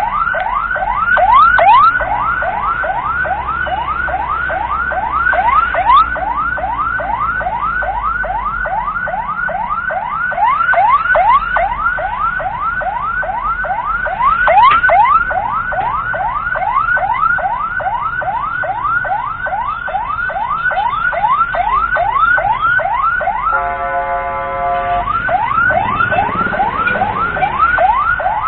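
Ambulance siren in a fast yelp, each cycle a quick falling sweep, about three a second. About 23 seconds in it breaks for a second or so into a steady horn-like blare, then the yelp resumes. A low vehicle rumble runs underneath.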